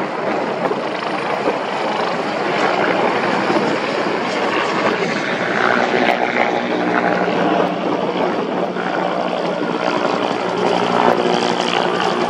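Firefighting helicopter hovering low, its rotor and turbine engine running loudly and steadily. A steady engine tone shows through the rotor noise from about halfway through.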